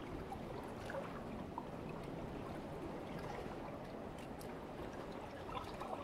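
Calm sea water lapping against rocks at the shoreline: a steady wash of water with scattered small splashes.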